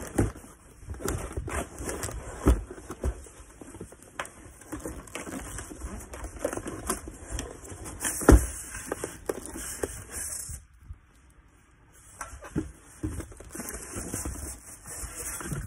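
Cardboard box and packaging being handled close to the microphone: irregular rustling and knocks with a few louder thumps, the loudest about eight seconds in, and a short lull near eleven seconds.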